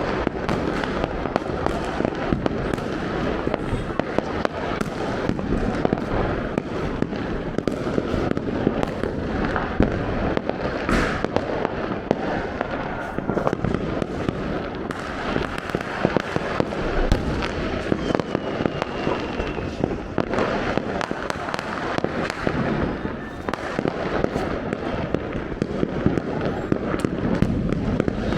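Many firecrackers and fireworks going off at once: a continuous dense crackle of pops and sharp bangs, with no let-up.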